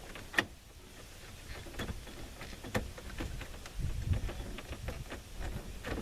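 Irregular clicks and light knocks of hand tools and plastic parts being worked loose under a truck's dashboard, with a sharp click about half a second in and a duller knock around four seconds.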